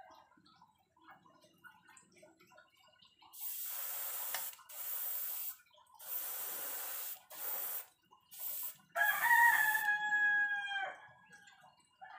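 Airbrush spraying silver paint onto fishing jigs in six short hissing bursts, starting about three seconds in. Near the end a rooster crows once, a long held call.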